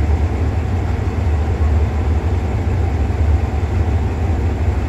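SRT Hitachi diesel-electric locomotive No. 4505 idling while standing, a steady deep rumble.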